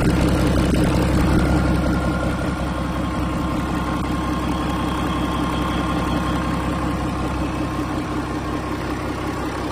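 Yanmar 6CHK-DT six-cylinder marine diesel engine running steadily near idle, a little louder in the first two seconds and then settling to an even drone.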